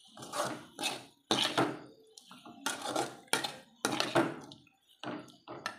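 Perforated steel ladle scraping and knocking around a metal kadai while a thick potato masala mixture is stirred, in repeated strokes about two a second.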